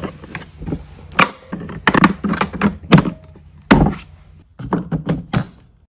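A run of sharp, irregular clicks and knocks, some with a dull thud: hard plastic tool cases, inserts and latches being handled, snapped and set down.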